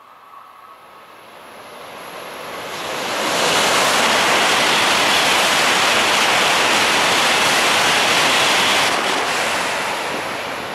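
N700A Shinkansen train passing through the station at high speed without stopping: a rushing noise of air and wheels that builds over about three seconds, stays loud for about five, then eases off near the end.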